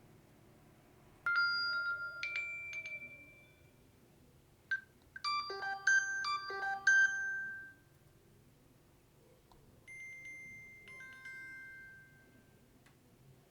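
A Samsung Galaxy smartwatch's small speaker playing short ringtone previews one after another as different ringtones are picked in its ringtone list. There are three separate bursts: a bell-like chime about a second in, a busier melodic snippet in the middle, and a softer chime near the end, each with its own set of notes.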